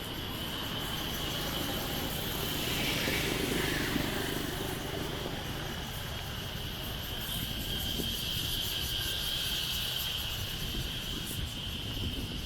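Street traffic heard from a moving bicycle: a steady low rumble of wind and road noise, with passing motor traffic that grows louder about three to four seconds in.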